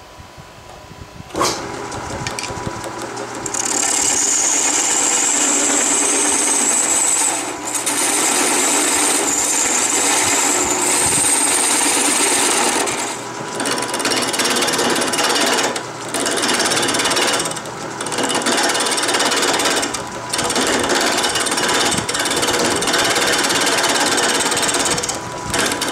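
Wood lathe spinning a square, curly-grained blank while a turning gouge roughs it to round: a loud, rapid chattering cut starts about a second in, with brief breaks where the tool is lifted off the wood. A steady low hum of the lathe motor runs under it.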